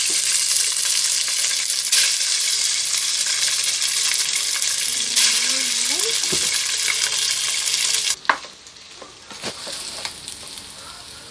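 Hot oil with tempering sizzling in a pan as cooked rice is added. The hiss is steady, then cuts off suddenly about eight seconds in, leaving a few light clicks.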